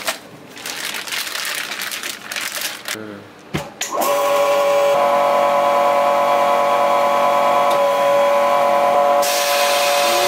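A few seconds of handling noise. Then about four seconds in, the vacuum pump of a TOSSPACK chamber vacuum sealer starts and runs steadily with a hum of several steady tones, and a brighter hiss joins in near the end. The pump is pulling the chamber down to vacuum, which makes the cold sauce in the bag of chashu pork boil.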